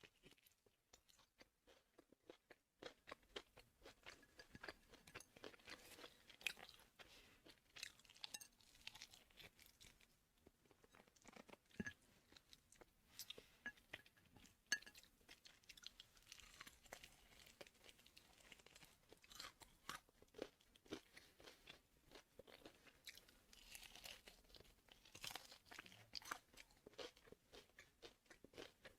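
A person eating close to the microphone: chewing with irregular crisp crunches and small mouth clicks, at a low level.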